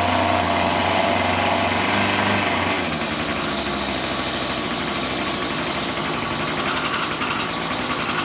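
Gas string trimmer (weed eater) engine running on half choke, just started after a spark plug change. It revs high for the first few seconds, drops to a lower, steady speed, and picks up again near the end.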